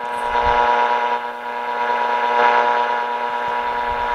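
1930 Philco Model 20 TRF radio's loudspeaker playing a signal generator's steady modulated test tone at 1400 kHz, mixed with static hiss, during alignment of its compensating capacitors. The level rises and dips slightly as a hand near the chassis alters the reception.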